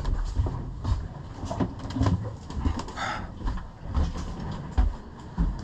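Irregular footsteps, bumps and knocks of someone moving forward through a sailing yacht's cabin and handling doors and hatches, over a steady low rumble.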